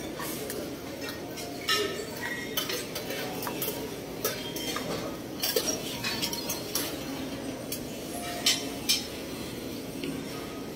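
Dishes and metal utensils clinking at a buffet: a scattered run of sharp clinks over steady room noise.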